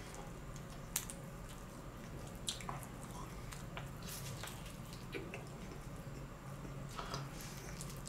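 Close mouth sounds of biting and chewing a grilled chicken leg: soft wet squishing with a few sharp smacks, about a second in, at two and a half seconds, around four seconds and near seven seconds, over a faint low hum.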